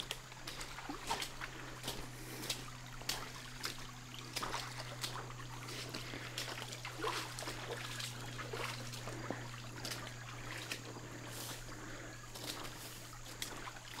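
Shallow creek trickling, with irregular footsteps and rustling through brush and leaf litter about once or twice a second, over a steady low hum.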